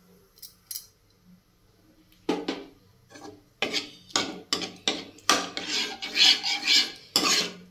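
Steel ladle scraping and stirring in a non-stick pan, working curd into thick cooked masala. After a couple of quiet seconds with a few faint taps, it becomes a run of quick rasping strokes, about two a second.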